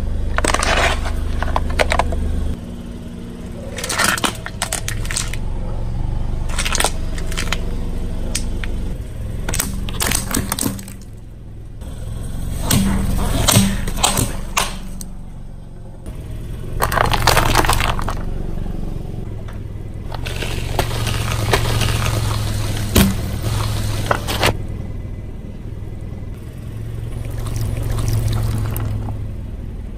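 Car tyre rolling slowly over hard plastic objects, among them plastic scrub brushes, crushing them in several bouts of cracking and snapping. The car's engine runs with a low steady hum underneath.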